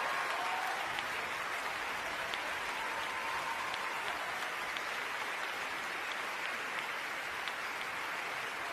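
Large theatre audience applauding steadily at the end of the performance.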